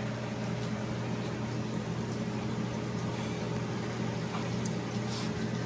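A steady low machine hum holds at an even level throughout, with a few faint soft clicks near the end.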